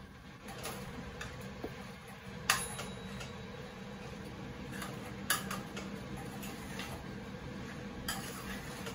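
Metal cooking utensil clinking and scraping against a frying pan while vegetables are stirred: three sharp clinks about three seconds apart and fainter taps, over a low steady hum.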